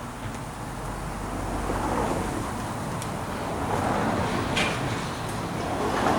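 Traffic noise from passing vehicles, a steady rushing that swells and fades as vehicles go by, loudest near the end.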